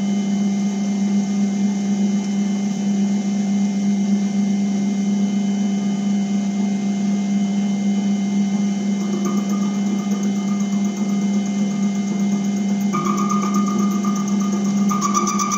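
Metal Master MML 2870 MV benchtop lathe-mill running steadily at about 300 rpm with a constant motor and gear hum. A higher steady whine joins about nine seconds in and grows louder near the end.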